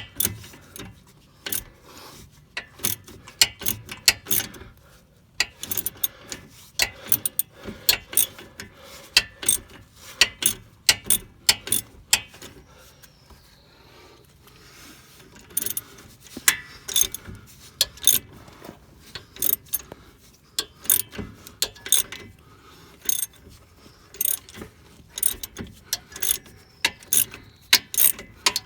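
Half-inch-drive socket ratchet clicking in quick runs as it backs out the 15 mm lower shock bolt. There is a quieter stretch of a few seconds near the middle.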